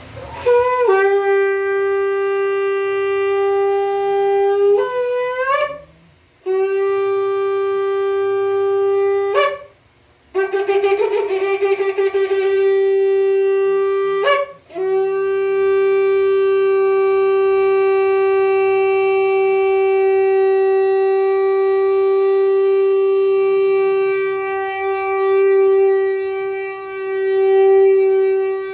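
Shofar blown in a series of blasts: two long notes that each bend up in pitch at the end, a short wavering, broken note about ten seconds in, then one very long held note.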